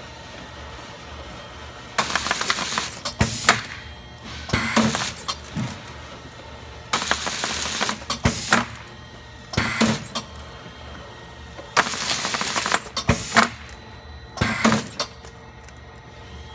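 CH1800 bubble-cushion packaging machine cycling. Bursts of noise with rapid clicking come about every five seconds, each a longer burst followed by a shorter one, over a steady machine hum.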